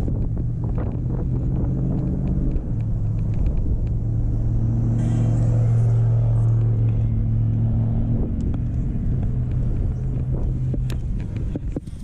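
A motor vehicle's engine running with a steady low hum, loudest in the middle and easing off after, over low wind rumble on the microphone.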